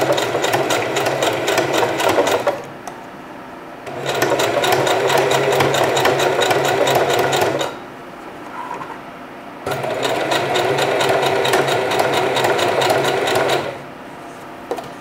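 Singer 4423 Heavy Duty electric sewing machine stitching a hair weft onto a mesh wig cap. It runs fast in three spells of a few seconds each, with short pauses between, stopping about a second before the end.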